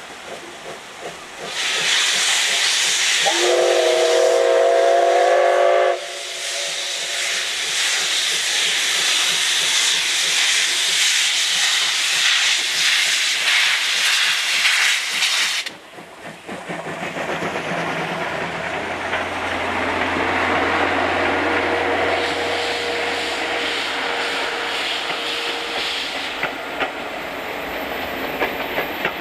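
Steam locomotive C57180 (JNR Class C57) sounding its whistle for about three seconds, a few seconds in, over a loud hiss of escaping steam as it sets off. The hiss cuts off suddenly about halfway through, leaving quieter rumbling running sounds of the locomotive.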